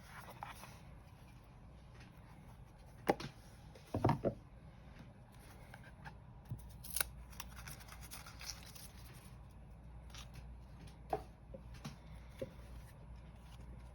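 Soft handling of a tarot guidebook and card deck: a scattering of short taps, clicks and paper rustles, the loudest about three and four seconds in.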